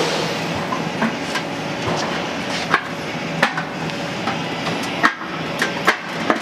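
Sharp metallic knocks and clanks, about ten of them at irregular intervals, as the cut flap of a steel exhaust muffler's casing is pried and bent open, over a steady background hiss.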